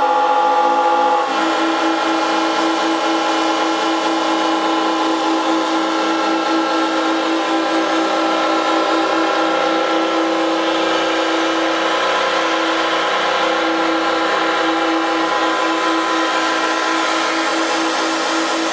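Sound installation of PVC pipe and a yellow rubber tube pinched by servo arms, giving a buzzing, reedy drone with many overtones. About a second in, the pitch drops and settles into a lower tone that throbs with a fast flutter and holds steady.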